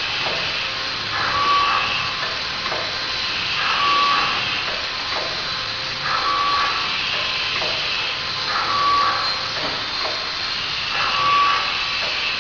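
Automatic auger-fed double-bag tea packing machine running through its packing cycle, about once every two and a half seconds. Each cycle brings a short high tone and a swell of hiss over a constant mechanical hiss.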